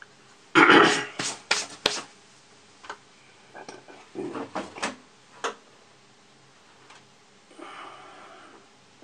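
Hard plastic parts of an AMT/ERTL Millennium Falcon model kit clicking and knocking together as they are handled and fitted. A loud clatter about half a second in, then a few sharp clicks, and a second run of softer clicks a few seconds later; a brief soft rustle near the end.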